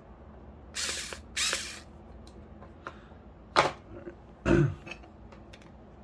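Handling noises from a plastic GFCI plug head and a screwdriver: two short scraping rustles about a second in, then a sharp click and a knock as the screwdriver is put back in its plastic case.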